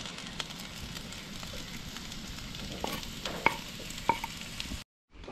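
Food frying and sizzling in a pan on a Coleman propane camp stove, a steady sizzle with a few sharp clicks of a utensil stirring around the middle. The sound cuts off abruptly near the end.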